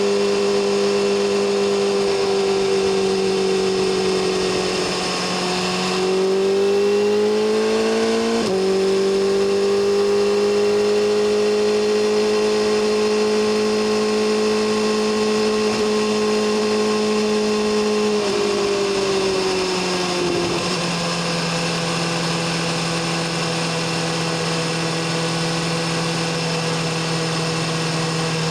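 BMW S1000RR inline-four engine and exhaust under way. The revs climb, drop sharply in an upshift about eight seconds in, and hold steady. They ease off at around eighteen seconds and settle at a lower steady note.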